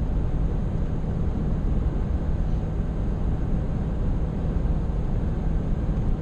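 Steady road noise inside a vehicle's cabin at highway speed, mostly low rumble of tyres, engine and wind, with no distinct events.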